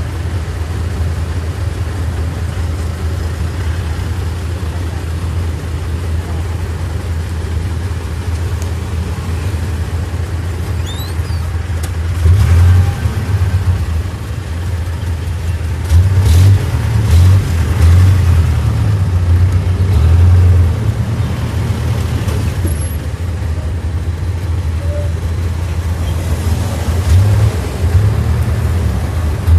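Jeepney's diesel engine running under way, heard from inside the cab, with louder surges as it accelerates about twelve seconds in, again for several seconds from about sixteen seconds, and once more near the end.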